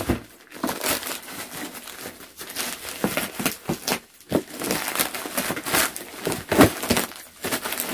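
Plastic courier mailer crinkling and rustling irregularly as it is handled and cut open with scissors.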